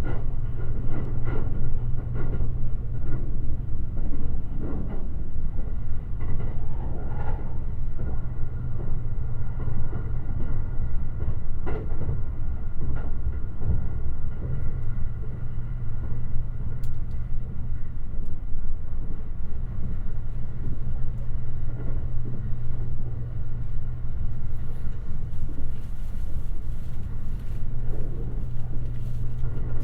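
Limited Express Shirasagi electric train running along the track: a steady low rumble with a low hum that drops out briefly a little past halfway, and scattered short knocks from the running gear.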